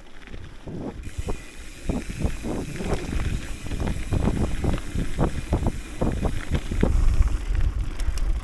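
Hardtail mountain bike riding fast over rough dirt trail: tyres rumbling and crunching, with many quick knocks and rattles from the bike over bumps, and wind buffeting the microphone. The rattling grows louder and busier after about two seconds.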